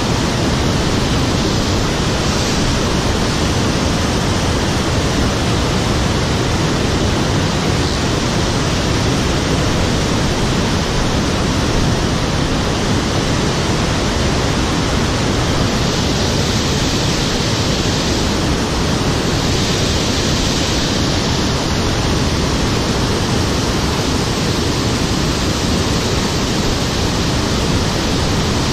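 Loud, steady rush of fast-flowing river water.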